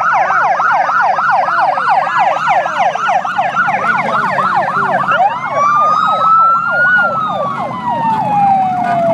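Emergency sirens sounding as the head of a motorcycle parade passes: a fast yelp of about three or four sweeps a second, joined about five seconds in by a wail that rises and then slowly falls, over the low, steady sound of motorcycle engines.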